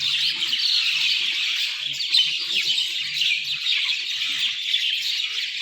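A chorus of many birds chirping and twittering at once, a dense, continuous tangle of quick high notes with no pause.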